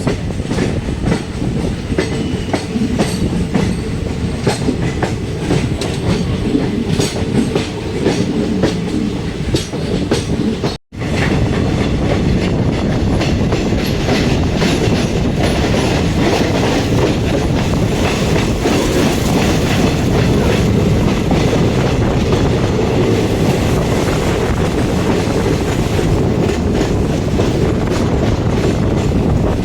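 Passenger train coaches running, with a steady rumble and wheels clacking over the rail joints. A momentary gap in the sound comes about eleven seconds in.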